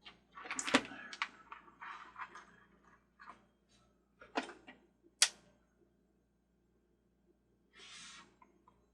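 Small clicks, taps and rustles of hands handling small parts, as a 2 amp glass fuse is fitted into the carousel's fuse holder, with a sharp click a little over five seconds in and a short rustle near the end.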